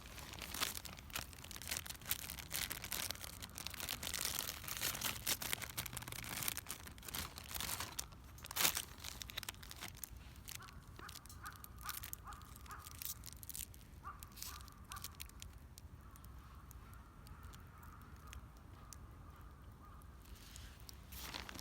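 Wood fire in a small fire stand crackling, mixed with rustling and snapping for about the first ten seconds. After that it turns quieter, with a faint thin call coming and going in the background.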